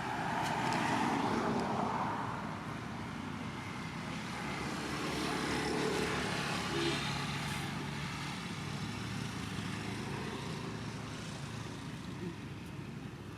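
Outdoor motor traffic: a vehicle engine and road noise swelling and fading as it passes, over a steady background hum.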